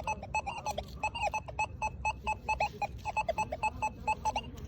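XP Deus 2 metal detector sounding off in quick runs of short, high beeps, signalling a silver coin under the coil.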